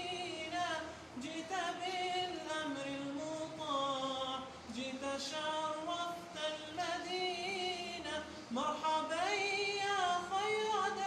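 Unaccompanied voice singing a slow, ornamented Arabic nasheed melody, a cappella, with long held notes that bend and waver in pitch.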